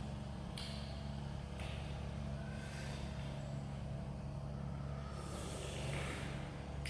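A steady low mechanical hum of a running motor, with a few short hissing sounds over it, the longest about five seconds in.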